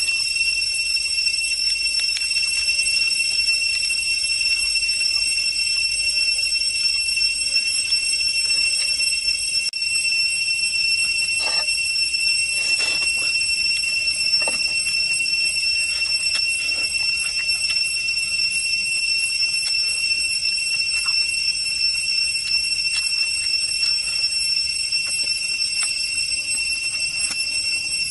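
Steady, loud, high-pitched drone of insects in the forest, unbroken throughout. A few faint crunches and tears of eating chicken by hand come through near the middle.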